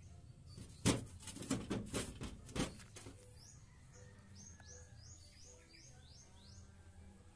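A run of knocks and bumps from the camera being handled in the first three seconds, then a small bird calling a quick series of about nine short, rising chirps, roughly three a second.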